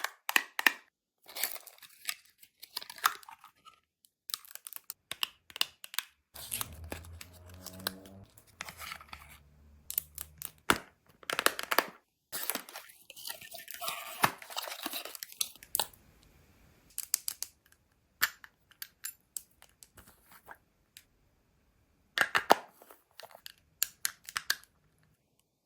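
Cosmetics packaging being unboxed: tearing and crinkling of wrapping, with many sharp clicks and taps from handling boxes and containers, and a long stretch of tearing about halfway through.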